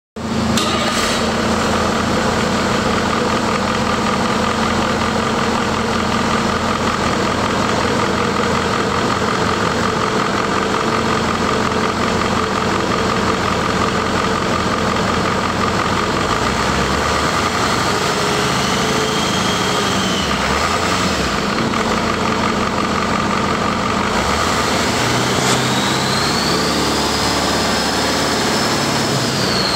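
Caterpillar 3208T turbocharged V8 diesel engine running out of a vehicle, on the shop floor. Its speed changes about halfway through and again from about 25 s in, and a high whistle rises and falls with it, the turbocharger spooling as the engine is revved.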